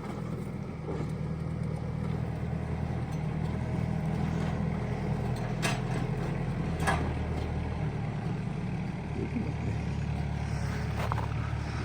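Kioti tractor's diesel engine running steadily, with two short knocks about halfway through.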